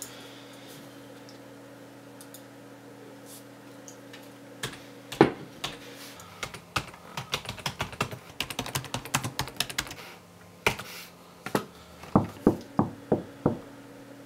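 Typing on a computer keyboard: scattered keystrokes at first, then a quick run of clicks, ending near the end with a few heavier, evenly spaced key strikes.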